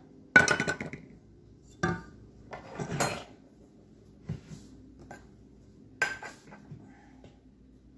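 A metal measuring cup and spoon clattering and scraping against a saucepan in about six separate knocks, as sticky peanut butter is scraped out of the cup into the pot.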